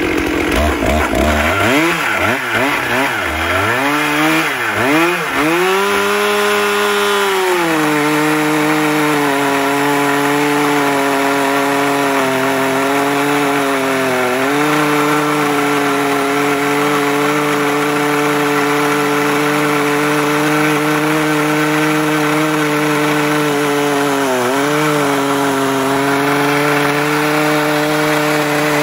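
Stihl chainsaw powerhead on an Alaskan chainsaw mill, revving up and down for several seconds, then running steadily at full throttle as it rips a slab lengthwise through a large log. Its pitch dips briefly twice as the cut loads the engine.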